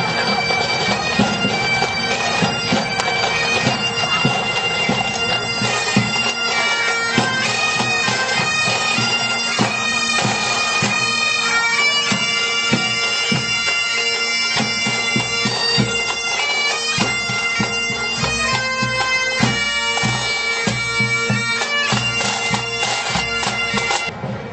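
Marching pipe band playing: several Highland bagpipes sound a melody over their steady drone, with the band's drums beating along.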